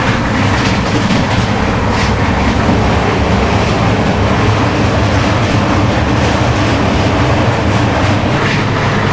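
Passenger train coach running on the rails, heard from on board: a loud, steady mix of noises with a few sharp clacks and no regular chug-chug rhythm.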